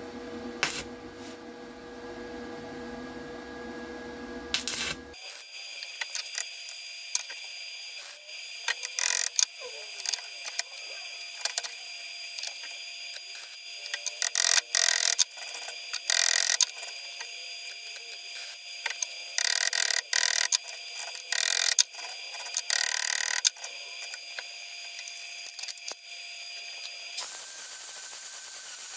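Stick (arc) welding: the arc is struck in short runs of about a second each, several times over, against a steady high-pitched background tone. Near the end an angle grinder starts grinding the fresh weld.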